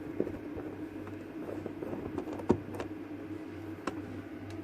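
Scattered light clicks and taps of an incubator's casing and parts being handled as it is opened up, the sharpest about two and a half seconds in, over a steady low hum.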